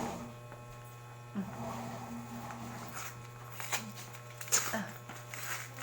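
A few sharp clicks and taps of a stiff power-bank box being handled and pried open, over a steady low electrical hum.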